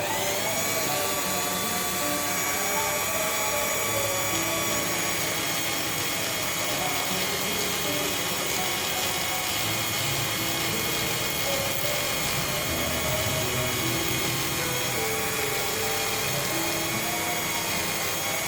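An electric power tool runs steadily with a constant whine, over background music.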